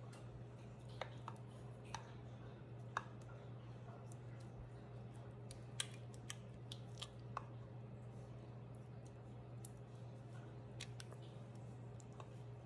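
Faint, scattered clicks and taps of a spatula against a glass mixing bowl as thick pumpkin pie filling is scraped out, over a steady low hum.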